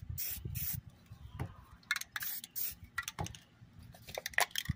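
Aerosol spray-paint can sprayed in several short bursts, each a quick hiss, with a low wind rumble on the microphone underneath.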